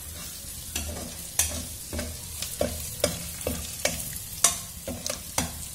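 Metal spatula stirring and scraping diced carrot, beans and capsicum in a metal pan, with sharp taps against the pan about two a second over a light sizzle of the vegetables frying in oil.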